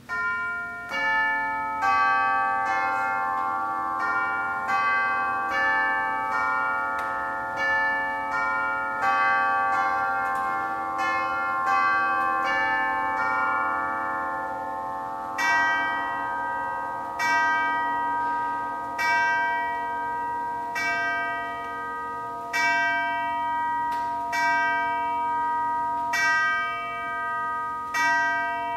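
Hermle grandfather clock's polished brass chime tubes playing a quick chime melody for about fourteen seconds, the struck notes ringing on over each other. Then slower single strokes, evenly spaced about two seconds apart, count out the hour.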